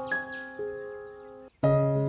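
Background music: gentle electric-piano notes struck one after another and left to ring. About one and a half seconds in, the music cuts out for a moment, then comes back on a new, fuller chord with a low bass note.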